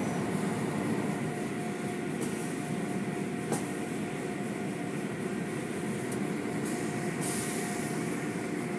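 Automatic car wash running: a steady rush of water and foam spraying and pouring over the car, with cloth wash strips slapping against it. It is heard muffled from inside the car, with a faint steady hum from the wash machinery and a single light knock about a third of the way in.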